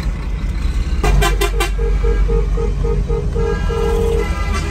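Vehicle horns honking over the low rumble of a car heard from inside its cabin: a quick burst of several blasts about a second in, then a string of short toots, about three a second, ending in a longer held blast.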